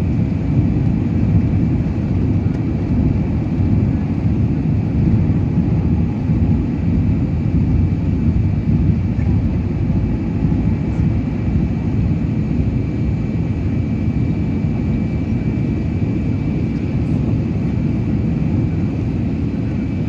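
Inside the cabin of an Emirates Airbus airliner at takeoff thrust: the jet engines and rushing air make a loud, steady deep rumble with a thin high whine on top, through the takeoff roll, liftoff and initial climb.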